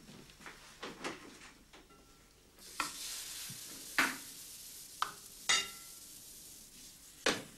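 Waffle batter sizzling on a hot cast-iron waffle iron. The sizzle starts about a third of the way in and runs steadily, with several sharp metal clinks of the ladle, fork and iron; before it come only a few faint knocks.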